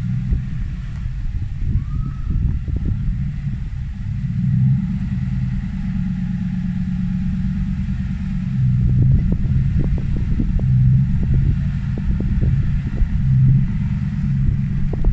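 Toyota Hilux engine running at a low, steady speed as the truck crawls forward. From about halfway in, a series of sharp knocks as its wheels roll up onto the wooden ramps and the aluminium canopy.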